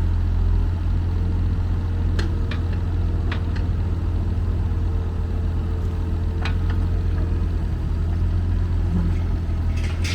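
JCB 8025 ZTS mini excavator's diesel engine running at a steady speed, with a few sharp metallic clicks or knocks from about two seconds in and again past the middle.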